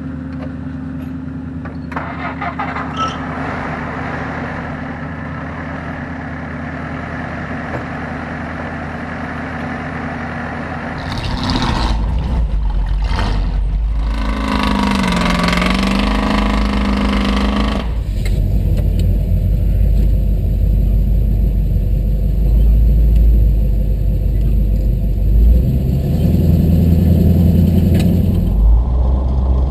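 Off-road truck engine idling steadily, then louder from about 11 seconds in, revving up and back down for a few seconds. After that a deep, heavy engine rumble carries on to the end.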